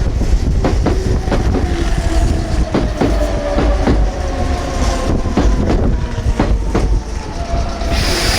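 Meitetsu μSKY electric train running through, its wheels clacking over rail joints in irregular pairs, with a steady whine that falls slightly in pitch. Wind rumbles on the microphone, and a hiss starts near the end.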